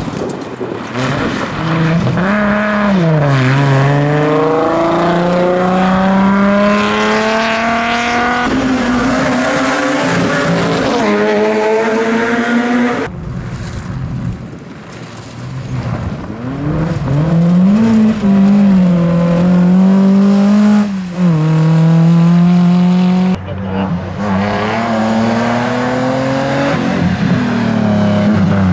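Rally car engine accelerating hard through the gears: the pitch climbs and drops back at each upshift, eases off near the middle, then builds again.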